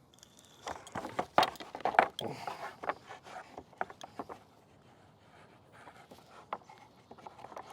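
Rope and pulleys being handled while a block and tackle is rigged: rope rustling and scraping, with scattered clicks and knocks that are busiest in the first three seconds and sparser after.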